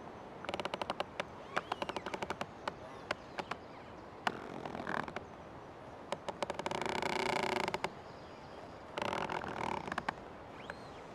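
Old tree creaking in the forest. First a rapid, crackling run of creaks from about half a second in, then a longer, steadier creak holding several tones about seven seconds in, and a shorter one near the end.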